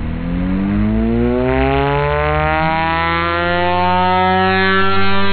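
Large FPV flying wing's electric motor and propeller under power: a buzzing whine that climbs in pitch over the first three seconds as the throttle comes up, then holds steady.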